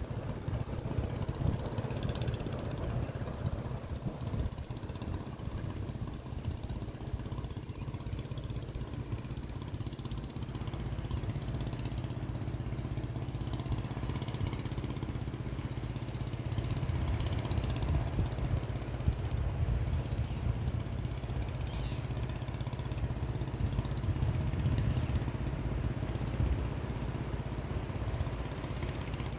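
Wind buffeting the microphone: a low, uneven rumble that rises and falls.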